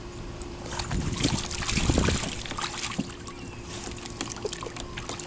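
Water splashing and sloshing in a kiddie pool as huskies plunge their muzzles in after small live fish, with irregular splashes loudest about one to two seconds in.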